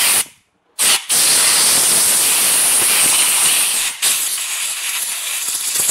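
Compressed-air blow gun hissing as it blasts dust out of a chainsaw-type recoil starter housing. It cuts out for about half a second near the start, runs hard for about three seconds, then eases to a softer hiss.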